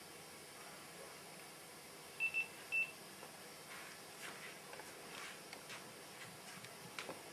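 Three short, high electronic beeps of one pitch, two in quick succession and then a third, over a steady hiss. Faint scattered clicks follow later, with one sharper click near the end.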